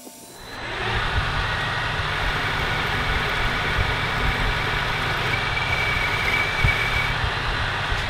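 Metal lathe turning a metal shaft, with an insert cutting tool taking a cut that starts about half a second in and runs on as a steady, noisy cutting sound over the low rumble of the machine. A thin high whine joins for a couple of seconds past the middle.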